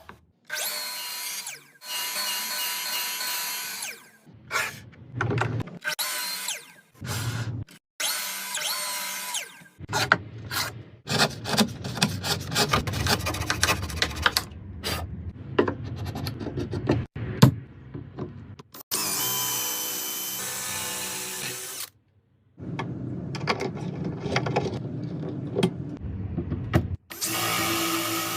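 Electric power tools working wood, heard in a run of separate spells a few seconds long. Each spell is a steady motor whine with grinding and cutting noise, and each stops abruptly.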